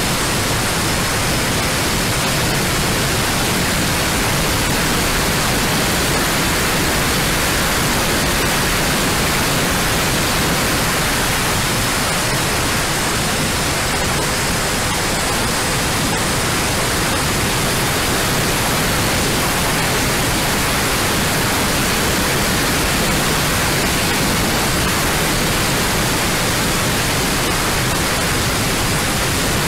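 Steady, unbroken rushing hiss carried on the analog FPV video link's audio channel, with a faint thin high tone running through it.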